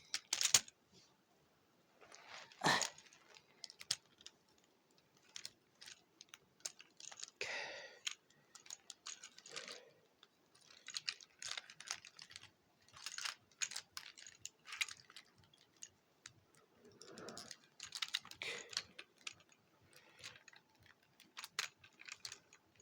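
Plastic parts and joints of a 2007 Transformers Ratchet action figure clicking and snapping as it is handled and twisted, an irregular run of small sharp clicks with a few soft rustles.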